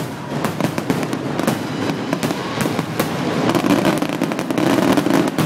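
Fireworks display: a quick, irregular run of sharp bangs and crackles from shells bursting overhead, over a continuous rumble that swells in the second half.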